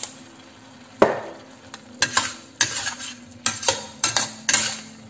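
Metal spatula scraping and knocking against a stainless steel wok as sliced gourd and scrambled egg are stir-fried. There are about eight sharp strokes in an uneven rhythm, starting about a second in.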